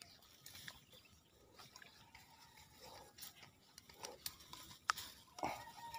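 Mostly quiet, with faint scattered clicks and rustles.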